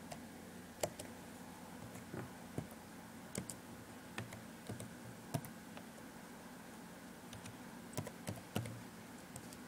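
Computer keyboard being typed on: irregular key clicks, a dozen or so spread unevenly, over a low steady hum.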